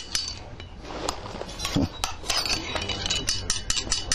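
Iron bead-making rods clinking against metal at the furnace while a glass evil-eye bead is heated so its eye dots sink in: a few scattered clinks, then from about halfway a quick run of light ticks, about five a second. A steady low hum underneath.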